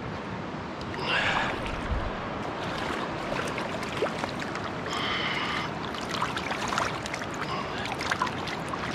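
Shallow river water splashing and swishing as a freshly bled chinook salmon is rinsed by hand in the current, over the steady sound of the flowing stream. There are louder splashes about a second in and again around five seconds.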